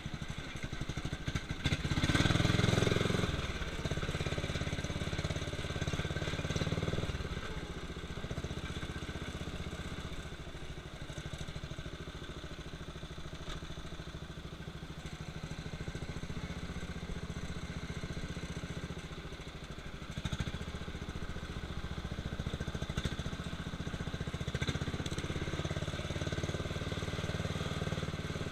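Murray lawn tractor's small engine running steadily under way, surging louder for a second or two about two seconds in.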